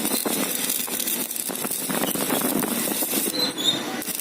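Stick (MMA) welding arc crackling steadily as a 3.2 mm electrode burns, from an inverter MMA200 welder running at about 203 amps. The steady arc under continuous load shows the repaired machine holding up under full welding current.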